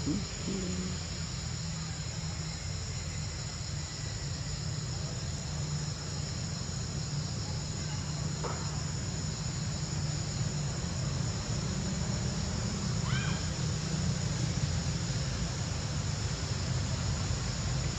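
Steady high-pitched insect chorus of cicadas or crickets over a steady low hum, with one short rising chirp past the middle.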